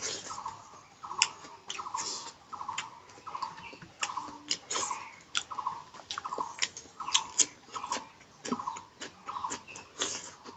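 A person chewing a mouthful of pork curry close to the microphone, with wet smacking and clicking mouth sounds about twice a second.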